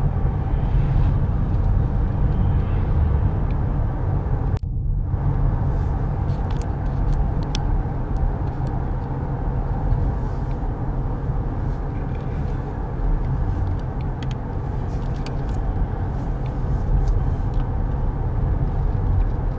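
Steady low rumble of a pickup truck driving on the road, engine and tyre noise heard from inside the cab. The sound dips briefly about five seconds in.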